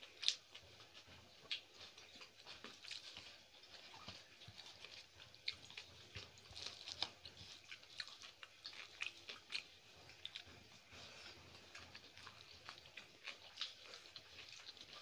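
Quiet eating by hand: chewing and lip smacks mixed with fingers squishing and mixing rice and curry on the plates, a steady run of small, irregular wet clicks.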